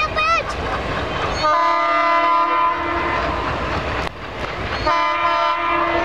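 Horn of a WDM-3A diesel locomotive sounding two long steady blasts, the first about a second and a half long and the second starting near the end. Underneath runs the continuous rumble and clatter of the passing train, with a brief wavering tone right at the start.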